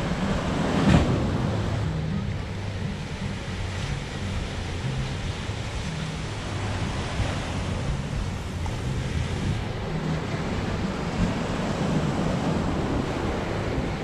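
Small waves breaking and washing up a sandy shore, with wind buffeting the microphone; one louder surge about a second in.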